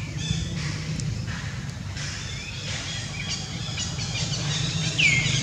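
Outdoor ambience of small high chirps, like birds calling, over a steady low hum. About five seconds in, one loud, short, high call slides down in pitch.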